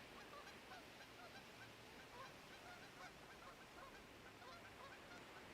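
A flock of geese honking faintly, many short overlapping calls throughout, over a soft steady hiss.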